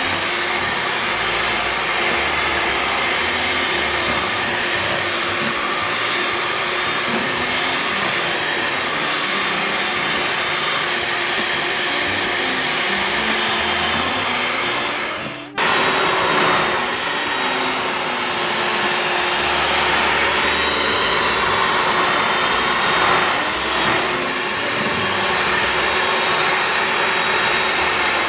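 Kenwood electric hand mixer running steadily, its beaters creaming butter and sugar in a plastic bowl. It briefly cuts out about halfway through, then runs on.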